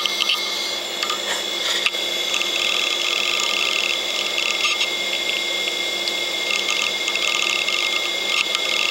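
Old 8 GB hard drive running with its cover off: a steady spindle whine with repeated bursts of rapid head-seek chatter as it keeps writing a file. A few sharp clicks between one and two seconds in.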